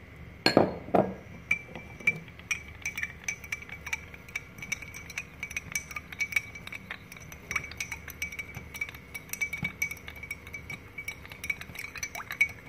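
Metal spoon stirring sugar into a glass of water, clinking against the glass several times a second, with the glass ringing faintly. Two louder knocks come about half a second and a second in.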